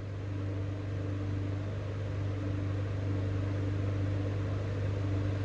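Steady machine hum: a constant low drone with a fainter higher tone over an even hiss.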